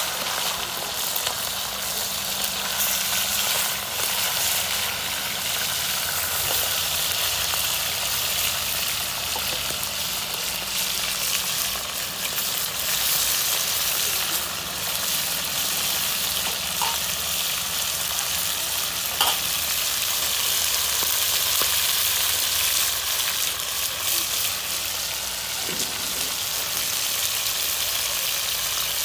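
Masala-coated chicken pieces frying in hot oil in an iron kadai: a steady sizzling hiss flecked with small crackles and pops.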